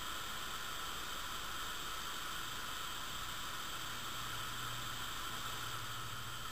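Steady background hiss with no clear event; a faint low hum comes in about halfway through.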